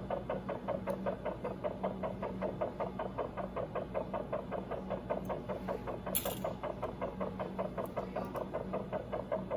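Anesthesia pulse monitor, most likely a Doppler blood-flow probe, sounding the anesthetized hamster's very fast heartbeat: a steady rhythm of about six pulses a second over a steady hum. A brief hiss comes about six seconds in.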